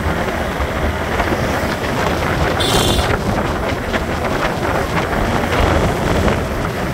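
Wind rushing over the microphone of a motorcycle riding at speed, mixed with engine and road noise. A brief high-pitched sound cuts in about two and a half seconds in.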